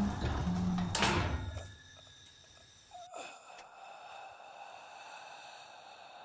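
Horror film soundtrack: the end of a low sung note with a sharp thud about a second in, then a faint, steady dark drone with a short sigh-like sound about three seconds in.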